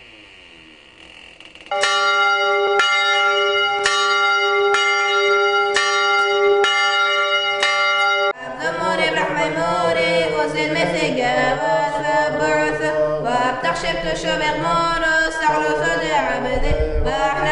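A bell struck over and over, about two strokes a second, each stroke ringing on at one steady pitch. About eight seconds in it stops suddenly, and chanted singing over a held low drone follows.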